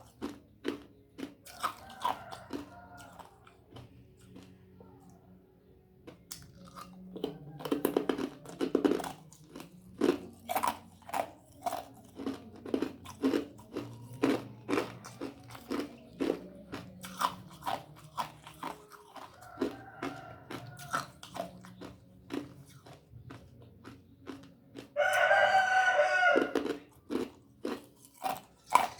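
Ice being bitten and crunched close to the microphone, with sharp crunches coming every half second or so. A rooster crows loudly for about a second and a half near the end, and fainter crows come early on and about two-thirds of the way through.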